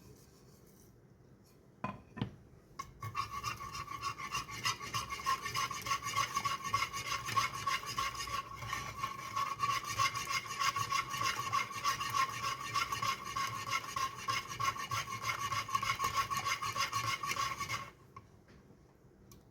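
Something being beaten or whisked in a bowl: a rapid, steady rasping with a ringing tone. It starts after two short knocks about two seconds in and stops sharply near the end.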